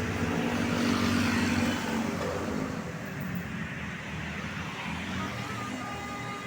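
Road traffic at the roadside: a vehicle passes close by, its engine and tyres loudest in the first two seconds or so, then easing into a steadier traffic rumble.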